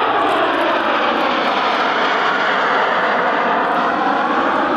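Formation of jet trainer aircraft flying past, a loud, steady jet noise whose tone sweeps slowly down and back up as they pass.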